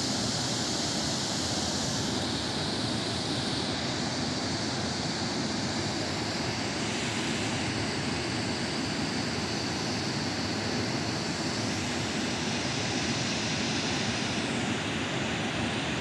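Steady rushing of a broad waterfall pouring over a wide rock ledge into a pool, heard from a distance.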